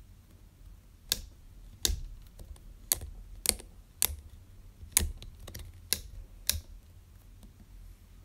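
HyperX SoloCast USB microphone being handled and tilted on its desk stand pivot, giving about nine sharp, irregularly spaced clicks over five seconds.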